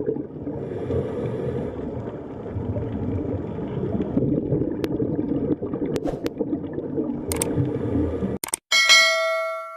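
Underwater-style water sound effect: low, rumbling bubbling and gurgling, which cuts off suddenly about eight and a half seconds in. Near the end, a single bright bell-like ring sounds and fades away.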